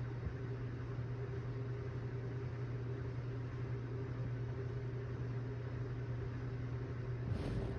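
A steady low mechanical hum with a faint hiss. A short noise breaks in near the end.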